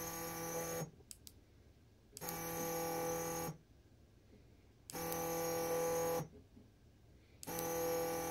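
Stepper motor running in short, evenly timed moves: a steady, pitched humming whine about a second and a quarter long, repeated every two and a half seconds or so. The run in progress stops just under a second in, and three more follow. Each run indexes the jig to its next finger-joint position a few millimetres on.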